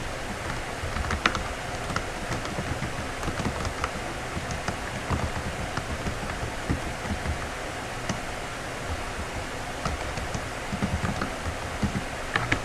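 Typing on a computer keyboard: irregular key clicks over a steady background hiss.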